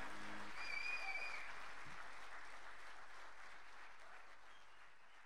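Audience applauding, fading out steadily toward the end. The last held chord of the music dies away at the start, and a short high whistle sounds about a second in.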